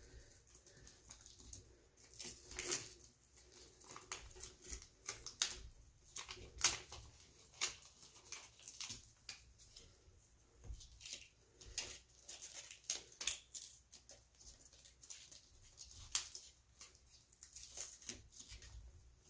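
Gloved hands pressing down and smoothing an adhesive occlusive dressing and handling its backing and wrapper: soft, irregular rustles, crinkles and light taps.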